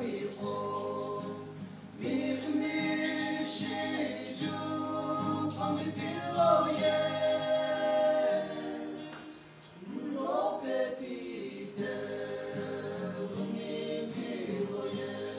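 A group of young men singing a gospel song together in harmony, holding long notes, with a short break between phrases about ten seconds in.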